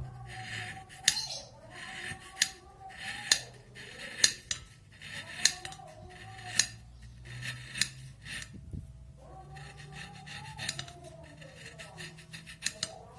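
A knife slicing a block of palm sugar finely: a sharp click with each cut, about once a second, thinning out over the last few seconds, with a light scraping between cuts.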